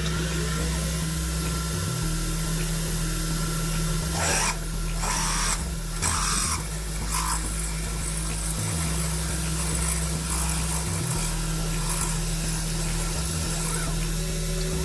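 CNC machine running while cutting parts: a steady motor hum with lower tones that shift in steps every few seconds. There are several short bursts of hiss about four to seven seconds in.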